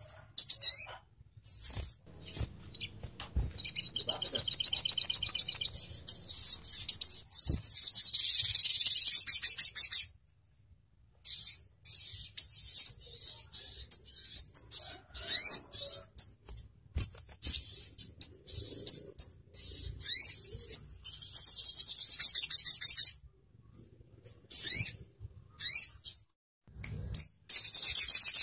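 Olive-backed sunbird (sogon ontong) song: long, fast, high-pitched trills of about two seconds each, the sharp "tembakan" rattle prized by bird keepers. Between the trills come short, sharp upward-sweeping chirps and brief pauses.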